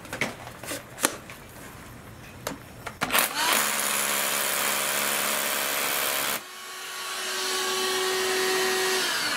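Panasonic EXENA EZ1HD1 18V cordless hammer drill with its motor-driven dust collection attachment, drilling into a concrete block. After a few handling clicks the drill starts about three seconds in and runs steadily. About six seconds in the sound drops off sharply, then builds up again and keeps running.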